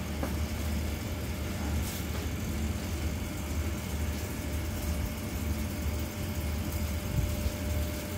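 Diesel engine of a stopped passenger train idling: a steady low hum with a faint steady whine above it.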